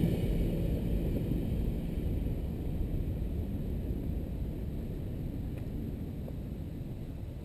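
Low rumble of a departing train of empty iron-ore wagons rolling on the rails, fading steadily as the train moves away.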